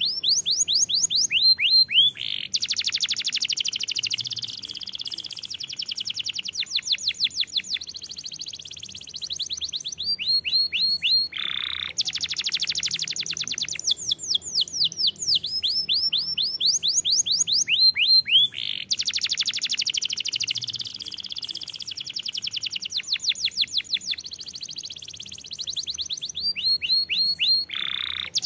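Domestic canary singing a long, continuous song of rapid trills: fast runs of quick falling notes alternating with dense rolling passages. A lower, harsher rasping note comes about eleven seconds in and again near the end, and the same sequence of phrases comes round twice.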